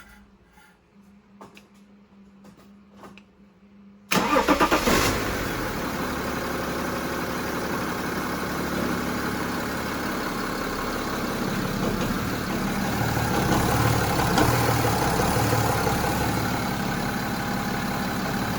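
BMW X3 3.0sd (E83) twin-turbo straight-six diesel cranking and catching about four seconds in, then idling steadily. At start-up the revs dip briefly with a rattle or knock from the left side of the engine, which happens here again, though not as hard as before.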